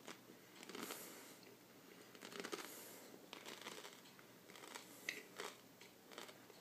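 Faint, irregular crunching of a person chewing a mouthful of sandwich whose 'bread' is a block of dry, uncooked ramen noodles.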